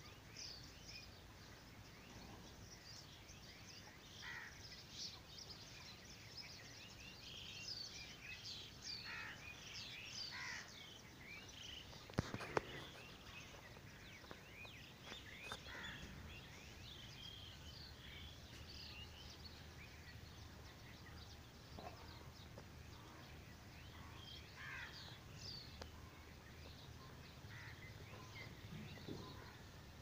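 Faint chorus of many small birds chirping and twittering at dawn, busiest in the first ten seconds, over a low steady background hum. Two sharp clicks about twelve seconds in stand out as the loudest sounds.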